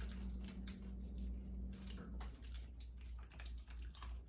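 Plastic sweet wrappers crinkling as they are handled and opened, in irregular small crackles.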